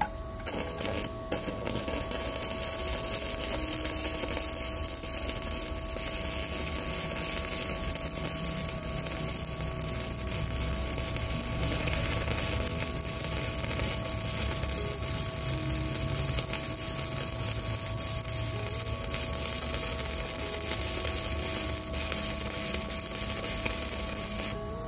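Stick welding with a 4 mm E6013 electrode at about 210 amps on a WeWeld ARC 220 inverter welder: the arc keeps up a steady crackling sizzle, then stops abruptly near the end. The arc burns smooth and even, the sign that the welder holds the heavy 4 mm rod well.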